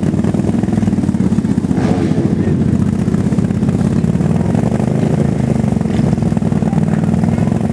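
ATV engine (an 800) idling steadily and loudly with a fast, even pulse; the quad is staged and waiting to launch.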